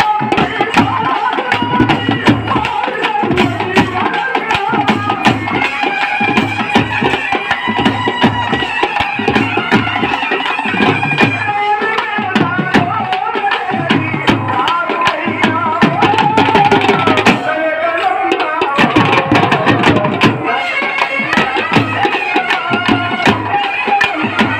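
Telugu kolatam folk music: a man sings into a microphone over a steady beat from a large double-headed drum and smaller hand drums, with dense sharp clacks throughout.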